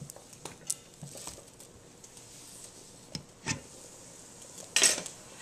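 Cookware being handled on the stove: a few light clicks and knocks of a pot lid and pans over a faint, steady sizzle of bacon frying in a stainless steel pan, with a short louder rush of noise near the end.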